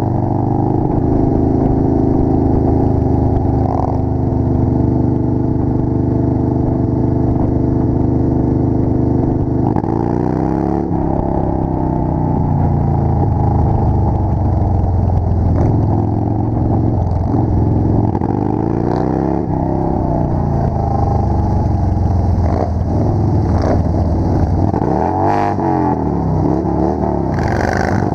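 Motorcycle engines running steadily in a group ride, heard from a rider's helmet camera, with the engine note sweeping up and down in pitch about ten seconds in and again near twenty-five seconds.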